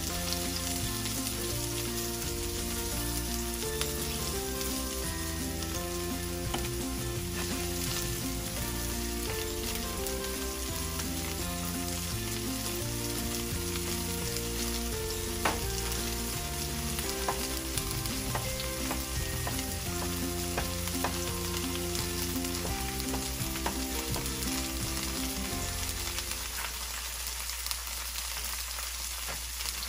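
Sliced mushrooms sizzling and crackling in a stainless steel frying pan on an electric stove, stirred with a utensil at the start.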